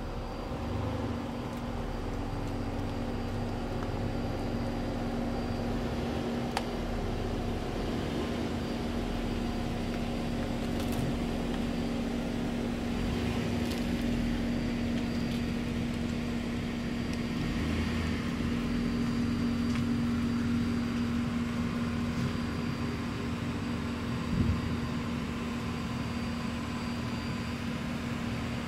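Steady low mechanical hum with one constant droning tone, and a single brief knock near the end.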